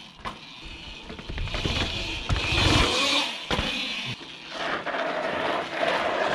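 Cake electric dirt bikes riding over concrete steps and dirt: a hiss of wind and tyre noise with scattered knocks, and a steady electric motor whine from about four and a half seconds in.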